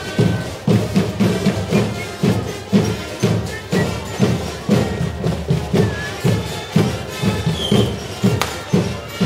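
Live band music for the dancing giants, driven by a loud, steady drumbeat at about two beats a second.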